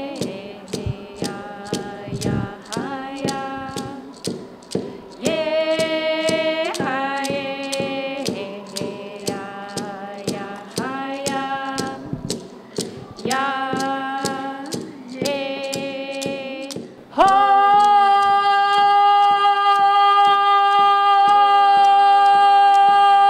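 Voices singing, held notes changing every second or two, over a sharp, even beat of about two strikes a second. About seventeen seconds in, the singing swells into one loud, long held note.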